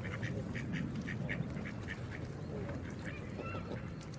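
Geese calling: a quick run of short honks, about four a second, for the first two seconds, then a few drawn-out calls. All of it rides over a steady low rush of water.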